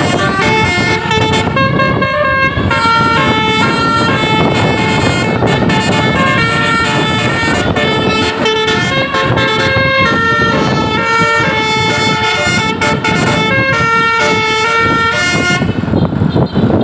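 A bus's basuri telolet musical horn playing a quick tune of changing notes, over engine and road noise; the horn stops shortly before the end.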